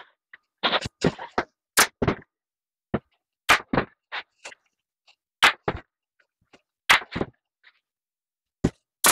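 Hands pressing, patting and rubbing a vinyl cushion cover stretched over foam while working the piping welt along its edge. The result is a string of short, irregular taps and rubs with brief silences between.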